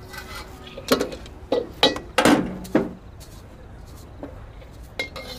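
Dishes and cooking utensils being handled at a street food cart as the vendor starts on an order of fried noodles: a quick run of knocks and clinks, then two more knocks near the end.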